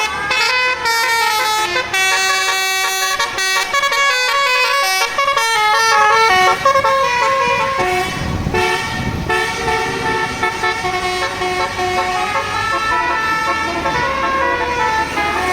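A tour bus's basuri telolet horn, a multi-trumpet melodic air horn, playing a tune in changing stepped notes, several sounding together. A low rumble swells and fades about halfway through.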